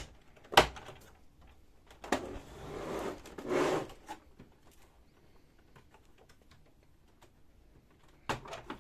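Plastic side cover of a Samsung Xpress M2875 laser printer being unclipped and pulled off: one sharp snap of a latch, then a couple of seconds of plastic scraping as the panel is worked loose, and a few light clicks near the end.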